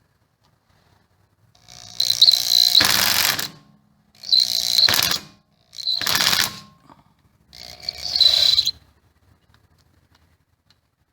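Cordless impact driver with a hex bit hammering at a brake rotor's retaining screw in four bursts of about a second each, a high motor whine over a rapid rattling, working the tight screw loose.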